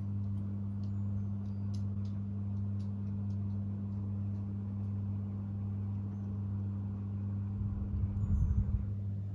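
Steady electric hum from a pet water fountain's pump, with a few faint high clicks. A low fluttering rumble comes near the end.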